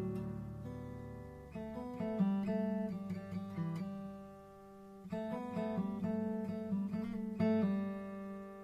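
Background music: acoustic guitar picking a melody, fading to a short lull midway before the notes pick up again.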